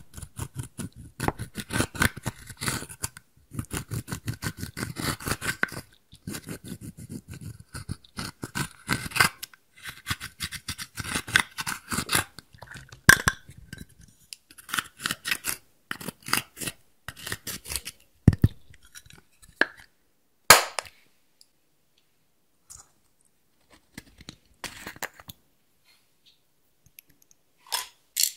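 Pressed eyeshadow being scraped and crumbled out of a palette's pans with a small hand tool: a dense run of rapid scratchy scrapes and crunches. About two-thirds through comes one sharp click, after which only a few sparse clicks remain.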